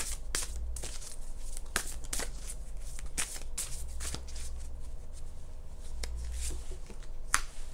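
Mystical Wisdom oracle cards being shuffled by hand: a run of irregular soft flicks and riffles of the card stock, with one sharper snap near the end.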